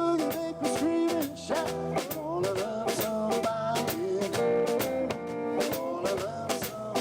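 A live jazz trio playing a swing tune, drums keeping a steady beat under a melodic lead line.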